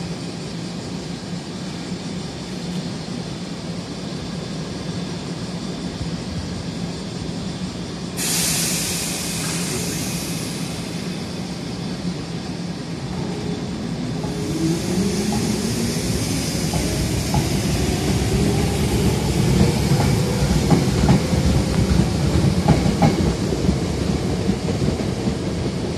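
Toyohashi Railway 1800-series electric train pulling away: a sudden burst of air hiss about eight seconds in, then from about fourteen seconds a whine rising in pitch from its motors and the clack of wheels over rail joints, growing louder as it speeds up.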